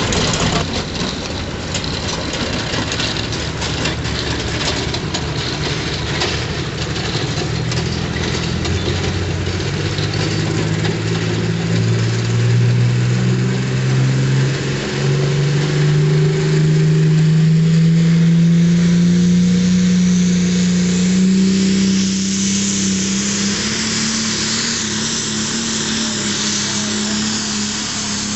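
Diesel pulling tractor's engine under full load hauling a weight sled, its pitch climbing steadily for about twenty seconds as it pulls down the track, with a hiss above the engine note.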